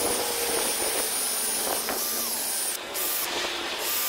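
Cordless drill spinning a brass wire wheel brush against a stainless steel thermos, scrubbing off the powder coating: a steady high motor whine over a harsh scratching hiss, dipping briefly about three seconds in.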